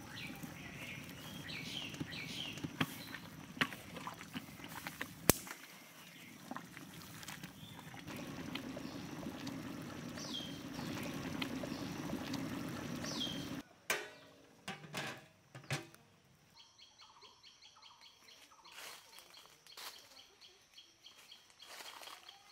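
Large pot of rice boiling hard, a steady bubbling with a few sharp clicks, and bird chirps over it. After about 14 seconds it gives way suddenly to quiet outdoor ambience with a few clicks and faint birdsong.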